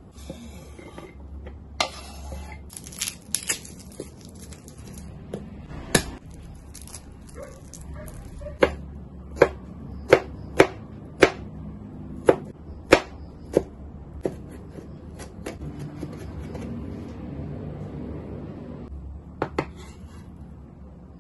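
Chef's knife on a wooden cutting board: scraping and sliding diced red onion across the board, then chopping garlic cloves, with a run of sharp knocks, about one every half second, through the middle.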